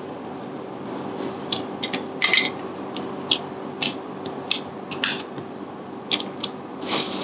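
Close-up eating sounds of someone eating snail curry and rice by hand: irregular sharp wet clicks and smacks from the mouth and the snail shells, starting about a second and a half in, with a longer, louder burst near the end. A steady low hum runs underneath.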